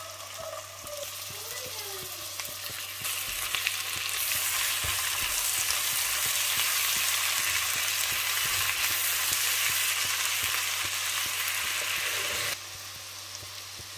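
Onions sizzling as they fry in oil in a pan, being browned, with the light scrape of stirring. The sizzle grows louder a few seconds in and drops suddenly near the end.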